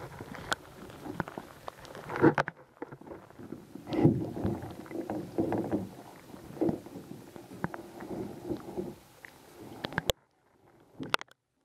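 Muffled underwater sloshing and irregular knocks picked up by a camera held underwater beside a canoe while a hooked walleye is played on the line. The sound cuts off abruptly about ten seconds in.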